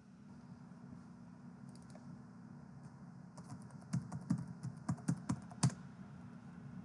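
Quiet computer keyboard typing: a quick run of keystrokes starting about three and a half seconds in and lasting around two seconds.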